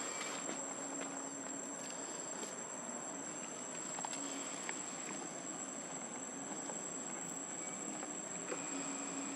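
Insects droning in a steady, high, even tone, with a faint low hum that comes and goes and a few small clicks.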